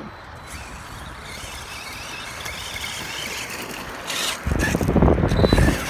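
Arrma Big Rock RC monster truck driving over dirt and gravel: a growing hiss of tyres and motor, then a sudden loud, rough rumble with knocks and scrapes from about four and a half seconds in as it comes close or lands.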